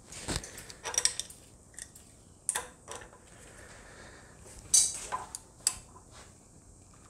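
Irregular sharp metallic clinks and knocks, about seven in all, of an adjustable wrench being fitted and shifted on a K24 engine's camshaft to brace it while the intake cam gear bolt is torqued with a torque wrench.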